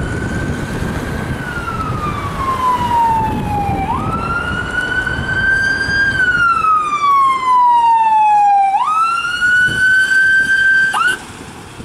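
Fire and rescue Isuzu pickup's wail siren, sweeping up quickly and sliding slowly back down in cycles of about five seconds, growing louder as the vehicle draws near. Near the end it gives a short quick rise and cuts off.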